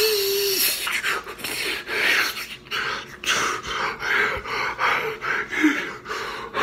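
A man panting heavily and unevenly through a mouth full of chocolate spread, in short noisy puffs, after a held vocal note at the very start.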